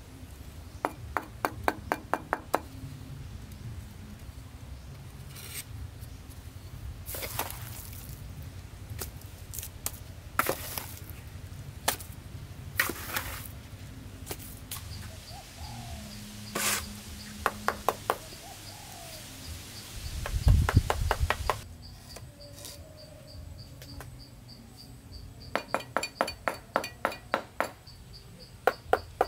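Sharp wooden knocks and taps from woodworking, some in quick runs of about eight a second near the start and near the end, with single louder knocks in between and a brief low rumble about two-thirds through. A bird chirps in the middle and an insect drones steadily in the second half.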